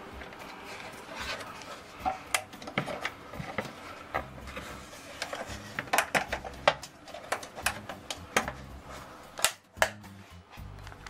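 Plastic grille of a bathroom exhaust fan and light unit, with its wire spring clips, clicking and rattling as it is pulled down off the ceiling housing. It is an irregular run of sharp clicks and taps.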